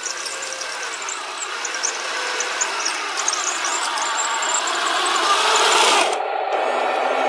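Heng Long Tiger II RC model tank driving across concrete: small electric drive motors and gearboxes whining, with the tracks clattering over the ground, growing louder as it comes close. About six seconds in the high hiss cuts off suddenly and a lower, steadier buzz takes over.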